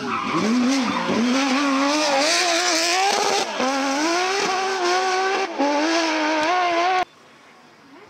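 Porsche 997 GT3 rally car's flat-six engine pulling hard at high revs, its pitch rising and falling with brief dips about three and a half and five and a half seconds in. The sound cuts off suddenly about seven seconds in.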